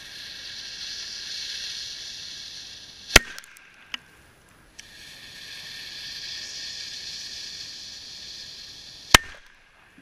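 Two large firecrackers, each with its fuse hissing for a few seconds before a single sharp bang. The first bangs about three seconds in, with a few small cracks after it, and the second bangs near the end.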